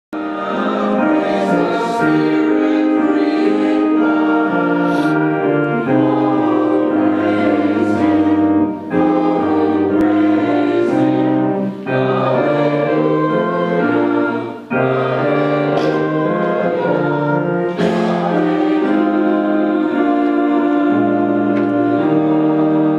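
A church congregation singing a hymn together, the notes held long and moving in chord-like steps.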